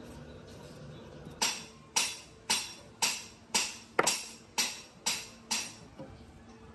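A run of nine sharp strikes, evenly spaced about half a second apart, each ringing briefly before the next.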